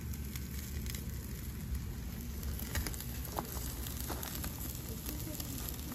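A thick pork neck steak sizzling on a wire grill over burning charcoal, with flames flaring and the fire crackling in scattered small pops over a steady hiss.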